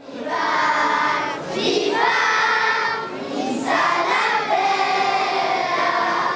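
A children's choir singing together, with long held notes.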